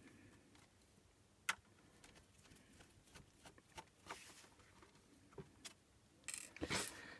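Faint handling of a rugged laptop's plastic casing and a screwdriver. There is one sharp click about a second and a half in and a few light ticks later, then a short spell of rustling and clicking near the end as the laptop is lifted to be turned over.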